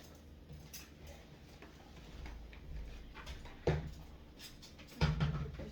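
Dishes being washed by hand, clinking and knocking against each other. Scattered light clicks, with a louder knock about two-thirds of the way in and another near the end.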